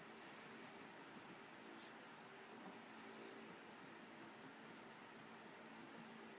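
Prismacolor light umber coloured pencil scratching across sanded UART paper in quick short strokes, about five or six a second. The strokes come in two runs with a pause of about two seconds between them. Faint, over a low steady hum.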